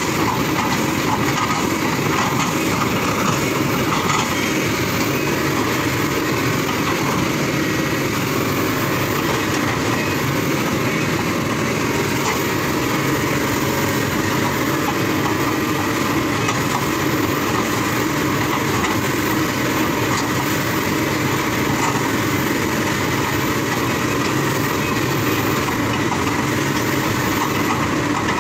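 Kobelco excavator running steadily at work, its diesel engine noise mixed with a fast, even rattle.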